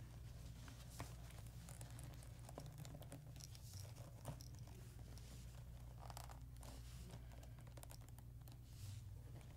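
Faint handling noises: soft clicks and rustles as a sixth-scale action figure's plastic parts and cloth costume are posed by hand, over a low steady hum.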